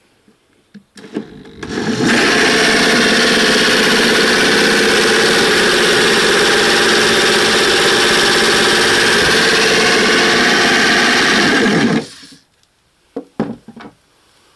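Washing machine motor rig spun up to high speed and running steadily for about ten seconds, a loud whirring machine noise, then shut off and winding down quickly with its pitch falling.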